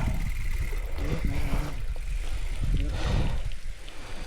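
Low, uneven rumble of wind and movement on a chest-mounted action camera during a mountain bike ride, with a faint voice about a second in.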